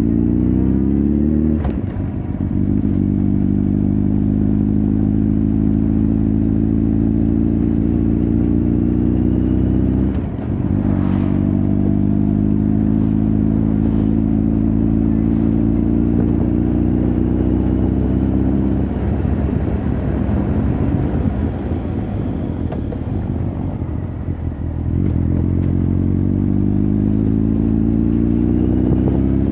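Honda CB1300 Super Bol d'Or's inline-four engine and exhaust pulling through the gears, its pitch climbing steadily and dropping at gear changes about two seconds and ten seconds in. From about nineteen to twenty-five seconds it runs rougher and lower off the throttle, then pulls again near the end.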